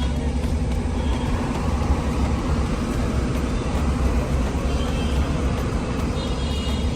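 Hyundai Grand i10 Nios running, a steady low rumble with a brief high chirp about six seconds in.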